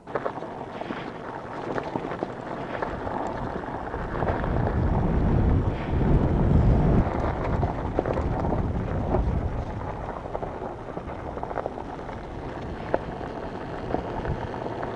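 Wind buffeting the microphone of a helmet camera on a KTM dirt bike riding down a gravel road, the bike's engine and tyre noise underneath. The sound starts suddenly, and the buffeting is heaviest from about four to seven seconds in.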